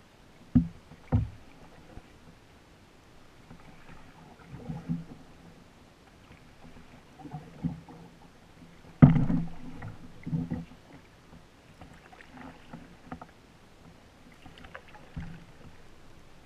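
Canoe being paddled: paddle strokes swishing in the water, with sharp knocks of the paddle against the canoe hull at irregular intervals, two close together near the start and the loudest a little past halfway.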